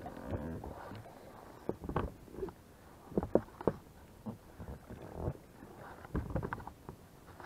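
An inflatable PVC boat being rowed: irregular short splashes of oars in the water, with knocks and creaks from the oars and hull. The loudest strokes fall around the middle.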